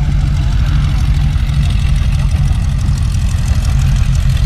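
Boeing Stearman biplane's radial engine idling, a steady low rumble with a rapid beat.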